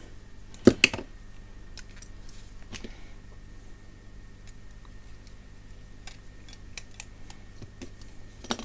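Small hand tools (needle-nose pliers and a small screwdriver) and camera parts clicking against each other on a workbench: two sharp clicks about a second in, then scattered light ticks, and another click near the end.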